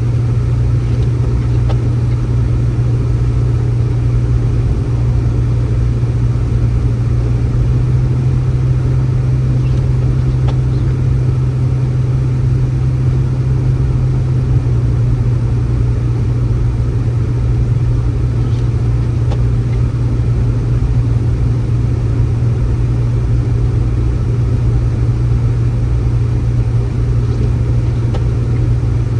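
Steady low motor drone with a constant hum, lifting slightly in pitch for a few seconds partway through.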